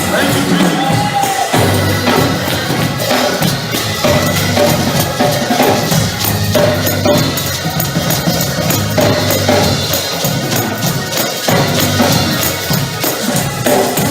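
Live gospel praise music played up-tempo: a steady beat on drums and tambourine over a bass line.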